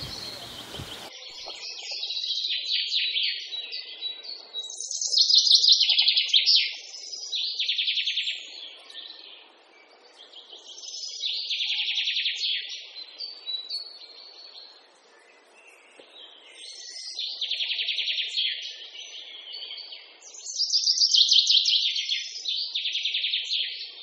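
A small songbird singing: bouts of fast, high chirps and trills a second or two long, repeated every few seconds with short pauses between them.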